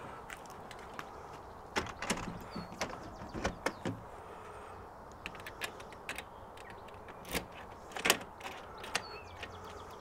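A patio door being pushed shut and its lever handle and lock mechanism clunking, then a key turning in a newly fitted Ultion anti-snap euro cylinder lock. There is a cluster of clicks and knocks about two to four seconds in and a few more near the end. The lock works smoothly.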